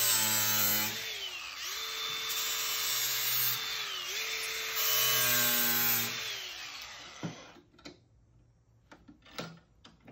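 DeWalt cordless angle grinder grinding the steel edge of a lawn mower blade, its motor whine dipping in pitch a few times as it is pressed into the blade and recovering. About seven seconds in it winds down, followed by a few light knocks.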